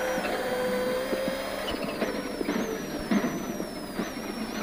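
Rally car engine and gearbox whine heard from inside the cabin, holding high revs at first. From about two seconds in, the pitch jumps up and sags back several times with sharp knocks, as the car brakes and shifts down for the chicane.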